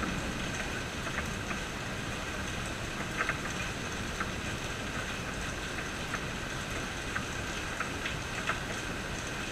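Steady rain hiss with scattered louder drips ticking onto a surface, irregularly, about once a second.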